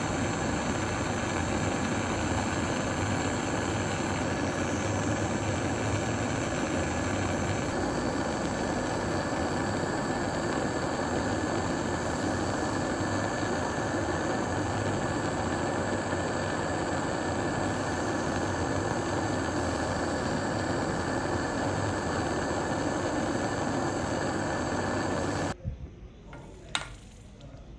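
Handheld butane gas torch burning steadily while it heats a steel screw red-hot. The flame is shut off about two seconds before the end, followed by a single short click.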